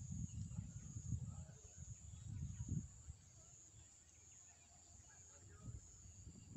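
Quiet open-field ambience, with low irregular rumbling on the microphone during the first three seconds that then dies down, and a faint steady high hiss underneath.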